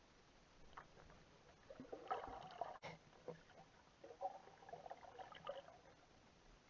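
Faint, muffled water sloshing and gurgling in two short spells, a couple of seconds in and again near the end.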